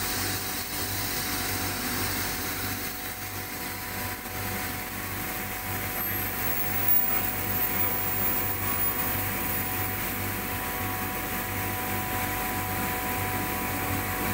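Steady hiss and hum of compressed air and compressor machinery, with a faint steady whine, as air from a hose pressurises a screw compressor's oil tank to drive the old oil out.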